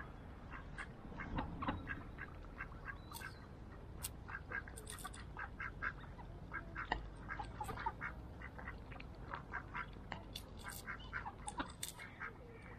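Mallards quacking: a steady run of short quacks, many in quick succession throughout.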